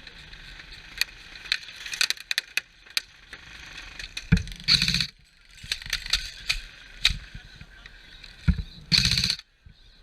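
Airsoft gunfire: two short rapid bursts, about five and nine seconds in, with scattered sharp single clicks and knocks between them.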